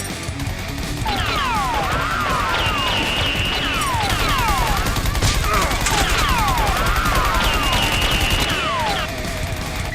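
Action-film gunfire sound effects: rapid, dense automatic fire mixed with many quick whistling zips that fall in pitch, easing off about nine seconds in.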